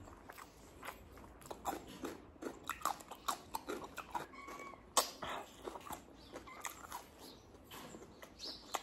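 Close-miked eating sounds: wet chewing and lip smacks from a mouthful of rice and sabzi eaten by hand, coming as irregular short clicks. A brief high squeaky note sounds about four and a half seconds in.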